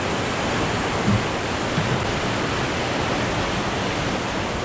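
River weir in full flow: a steady rush of water pouring through the weir and churning below.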